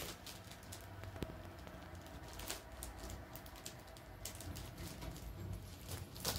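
Scattered light clicks and taps of handling, a few each second, over a faint low hum.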